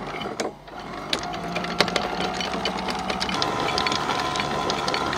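Vertical anchor windlass running, its motor whining steadily while the rusty anchor chain clatters link by link over the gypsy as chain is paid out to anchor. The whine starts about a second in.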